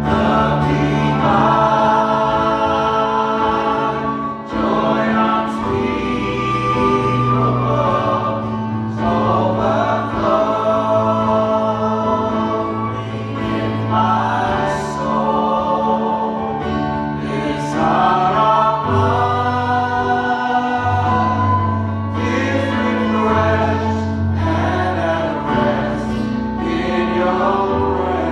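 Worship music: a group of voices singing a gospel song over sustained bass notes and instruments.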